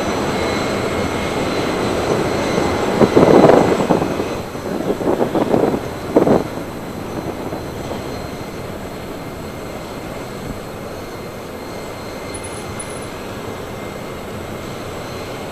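Steady rushing outdoor noise of engines at an airport apron, with a louder, rough surge of engine noise about three seconds in that fades by about six and a half seconds.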